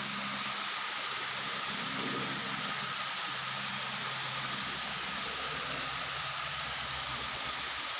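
Steady rushing of a mountain stream's flowing water, an even hiss that does not change.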